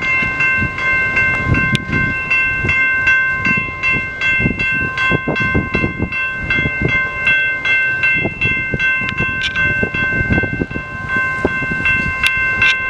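Railroad crossing bell ringing steadily, about three strikes a second, each strike ringing on, while the crossing is blocked by a train. A low rumble runs beneath it.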